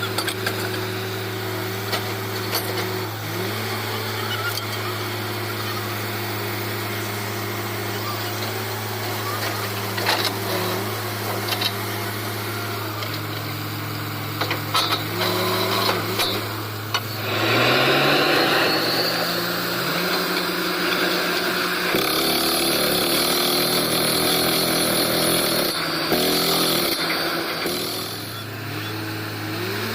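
Borewell drilling rig's diesel engine and air compressor running steadily, with scattered knocks. About 17 seconds in, the engine speeds up and a loud rushing hiss of air sets in, easing off near the end.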